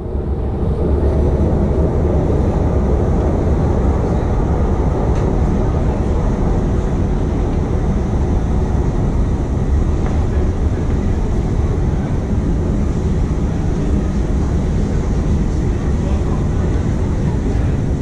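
Steady low rumble and hiss of a running escalator and the underground station hall around it, with a faint murmur of crowd voices.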